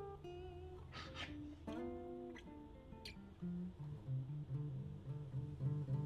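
Background music led by a plucked acoustic guitar, with held notes, a few strums and a bass line.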